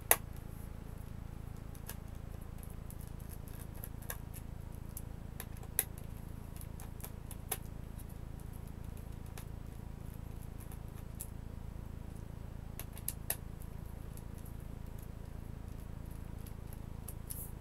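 Scattered small clicks and taps of a screwdriver and screws against the plastic chassis of an Asus C300S Chromebook as screws are backed out, over a steady low hum.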